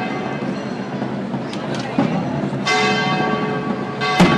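Church bells ringing: a fresh stroke about two-thirds of the way through sets off a long ringing chord, with a few sharp drum beats and crowd noise underneath.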